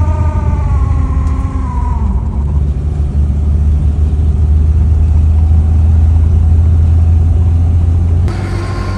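Mazda 1800's four-cylinder engine, heard from inside the cabin, pulling the car along under acceleration. The engine note rises, then drops about two seconds in at a gear change, and settles into a steady deep drone. The sound changes abruptly shortly before the end.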